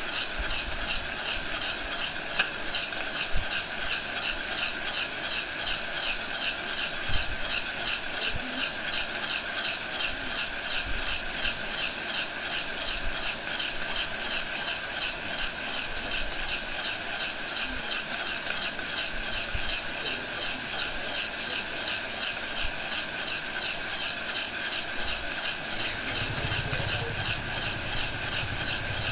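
Heat gun blowing steadily into a metal pot while a spoon keeps stirring green coffee beans, the beans rattling against the pot in an even rhythm, with a few knocks of the spoon in the first half. A low rumble comes in near the end.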